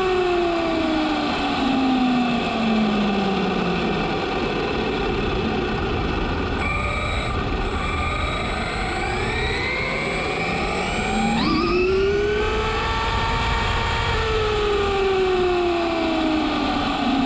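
Brushless motor and drivetrain of a Traxxas Slash 4x4 BL-2S RC truck, heard from a camera on its chassis. The whine falls in pitch as the truck slows over the first few seconds, then climbs as it accelerates from near walking pace around the middle, with a thin high tone while it pulls away. The whine holds briefly and then falls again near the end, over a steady rush of tyres on the road.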